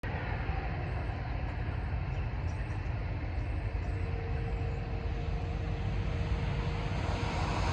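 Steady low outdoor rumble, with a faint steady tone joining about halfway through and a few faint high chirps in the first half.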